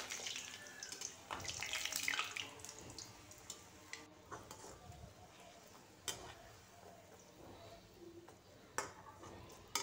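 Puri deep-frying in hot oil in a steel kadai: a crackling sizzle, strongest in the first couple of seconds and then softer. A few light clicks of the slotted steel spoon against the pan.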